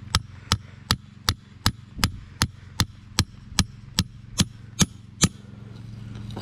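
A steel stake driven into the soil by steady hatchet blows, metal striking metal, about two and a half strikes a second. The blows stop about a second before the end. The stake is making a hole for a trap's earth anchor.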